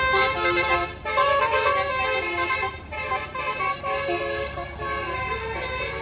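Bus musical air horn ('telolet basuri' horn) playing a stepping multi-note tune over low engine rumble, loudest in the first half and easing off about halfway through.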